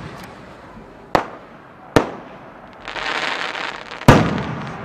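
Aerial firework shells at close range: two sharp bangs about a second apart, a second or so of hissing, then a loud burst bang near the end that dies away slowly.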